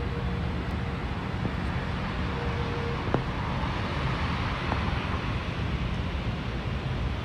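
Steady vehicle road noise: a low, even rumble with a hiss over it, like a car or van on the move.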